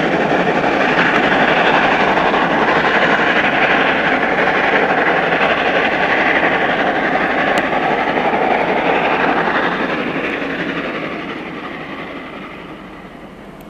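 A steam locomotive pushing at the rear of a heavy freight train on a gradient. Its exhaust and the running noise of the train are loud, then fade away from about ten seconds in as the train draws off.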